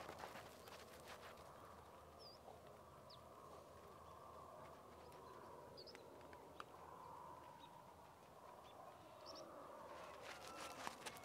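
Faint outdoor ambience with a few short bird chirps. Clusters of light clicks come at the start and again near the end.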